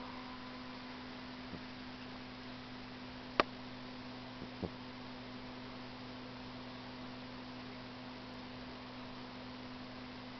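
A faint, steady hum of a few fixed tones over light hiss, with no audible pulsing, and a few short clicks about one and a half, three and a half and four and a half seconds in.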